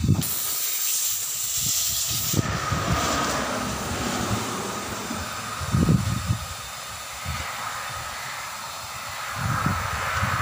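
Compressed air hissing through an air-hose chuck clipped on the valve, inflating a 235/75 R17.5 tubeless truck tyre. A loud, sharp hiss for the first two seconds or so drops to a lower, steady hiss of air flowing in, with a few dull knocks from handling the tyre and hose.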